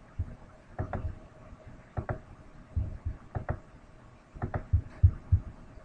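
Irregular soft knocks and clicks close to the microphone, about a dozen, some in quick pairs, over a faint steady hum.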